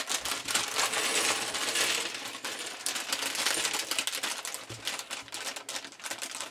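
Plastic polybag crinkling as it is torn open, with small LEGO bricks clattering out onto a table in a fast run of clicks.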